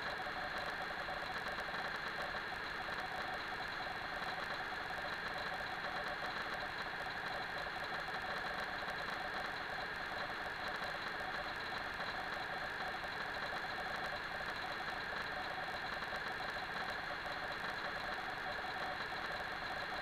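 Steady hum of the ice rink's machinery, several unchanging high whining tones over a faint low rumble, with no skating, puck or crowd sounds standing out.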